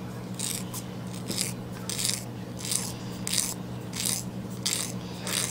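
Emery board filing the tips of a white-faced capuchin monkey's fingernails: a run of short, evenly spaced rasping strokes, a little under two a second.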